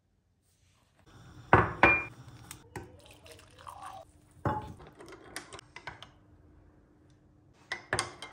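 Hot water poured from a metal kettle into a ceramic mug, starting about a second in. Sharp clinks and knocks of the kettle, mug and crockery on the counter come throughout; the loudest two are about a second and a half in.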